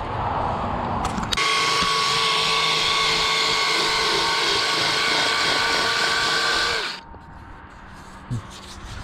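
Handheld rotary power tool running at a steady high speed inside the steel pin bore of an excavator thumb linkage piece, starting about a second and a half in and cutting off abruptly near the end.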